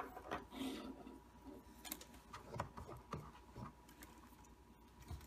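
Faint, scattered small taps and clicks of hands handling a small circuit board and a strand of solder wire on a wooden workbench.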